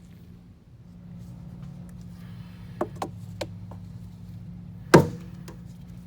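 Objects being handled and set down: a few light clicks near three seconds in and one loud knock about five seconds in, over a steady low hum.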